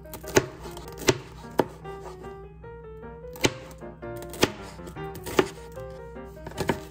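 Chef's knife slicing bell peppers into strips on a plastic cutting board, each cut ending in a sharp knock on the board, about eight cuts at an uneven pace of roughly one a second. The knife is dull and needs sharpening.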